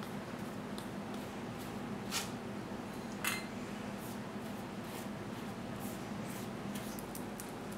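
A brush spreading melted butter over the crust of a baked loaf: soft brushing with a few light ticks and clicks, two a little louder about two and three seconds in, over a steady low hum.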